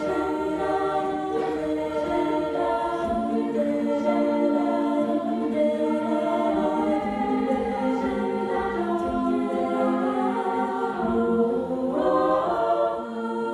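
Treble-voice a cappella group singing sustained chords without instruments, the held harmony shifting to a new chord every second or two.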